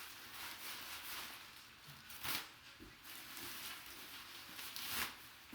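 Rustling of packaging being handled as the next item is unpacked, with two louder brief rasps, one about two seconds in and one near the end.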